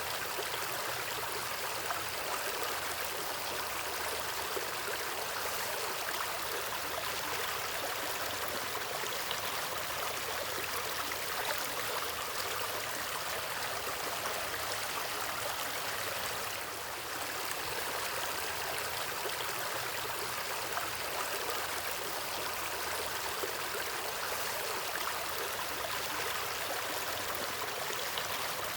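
Natural water stream flowing steadily over rocks, a continuous rushing and babbling with a slight dip in level about seventeen seconds in.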